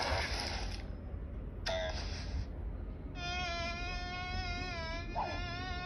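Cartoon soundtrack from a phone's speaker: after a short noisy burst, a long steady buzzing tone starts about three seconds in and holds, with a brief break near the end.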